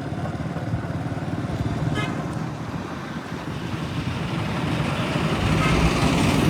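Motorcycle riding along a road: a steady noisy rumble that grows louder over the last couple of seconds, with a brief high tone about two seconds in.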